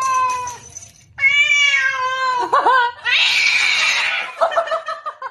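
Domestic cat giving two long, drawn-out meows, the second wavering as it ends, followed by a person laughing in the second half.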